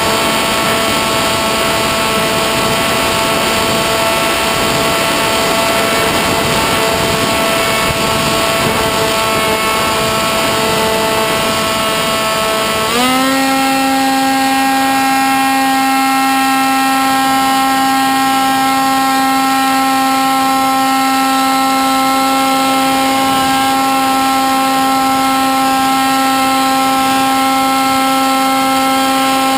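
Electric motor and propeller of a Sky Surfer RC plane in flight, heard from the onboard camera as a steady whine over wind rush. About 13 seconds in, the pitch steps up and the whine grows louder as the throttle is advanced, then holds steady.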